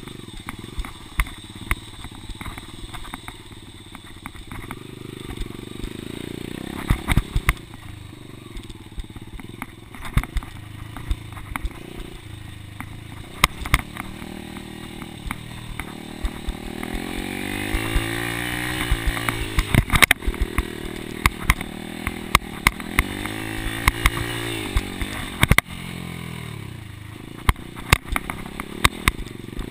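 Dirt bike engine running under way on a rough trail, its revs rising and falling as the rider works the throttle, with two strong climbs past the middle. Frequent sharp clicks and knocks sound over the engine as the bike jolts over bumps.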